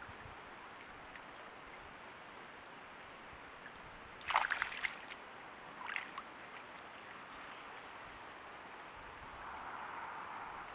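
Eurasian beavers moving through shallow water at the bank's edge: a short burst of splashing about four seconds in and a smaller one near six seconds, over a steady faint hiss.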